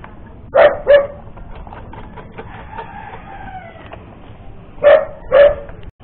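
A dog barking: two sharp barks about half a second in and two more near the end. Between them, a rooster crows faintly in one long rising-and-falling call.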